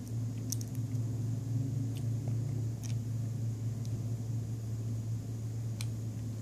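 Faint, sharp clicks of a small screw and precision screwdriver against an LG G3's plastic midframe as the screw is set and driven, a few scattered over the seconds. Under them runs a steady low hum that is louder than the clicks.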